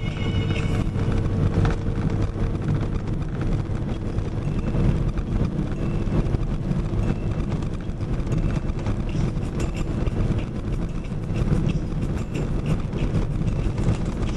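Steady engine and road noise inside a box truck's cab while it drives along.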